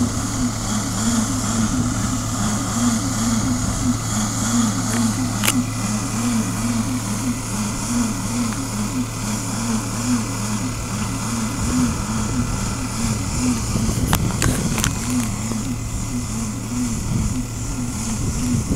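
Tractor engine running steadily while it works a Metal Fach front-loading bale wrapper, its hum pulsing regularly about twice a second. Wind buffets the microphone near the end.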